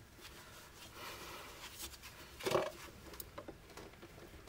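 Faint handling noise as a torque screwdriver is worked on a breaker terminal screw, with gloved hands and a shirt sleeve rustling against the panel wiring. There is a short, louder scuff about two and a half seconds in, then a few light clicks.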